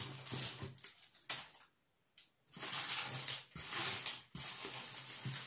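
Rustling and crinkling of packaging as hands rummage inside a cardboard parcel box, with a brief break in the sound about two seconds in.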